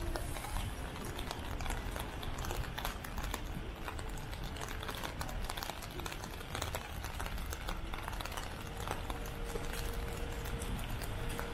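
Busy city street ambience in the rain: many footsteps and light pattering clicks on wet pavement over a steady low rumble.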